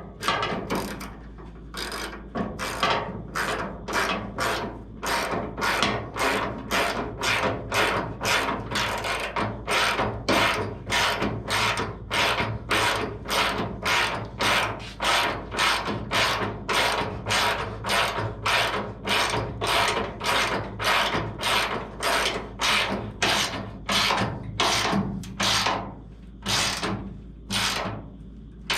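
Hand ratchet wrench clicking in steady back-and-forth strokes, about two a second, as the cowl panel bolts are run down into chased threads, with a couple of short pauses near the end.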